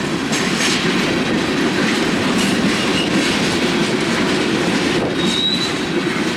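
Freight train cars rolling past, with steady wheel-on-rail rumble and clatter and a short high wheel squeal about five seconds in.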